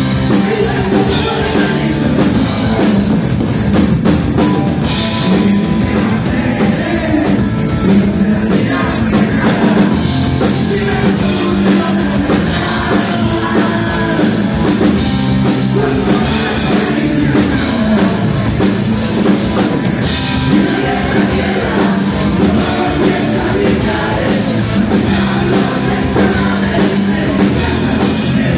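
Live rock band playing: a singer over electric guitars and a drum kit, loud and steady.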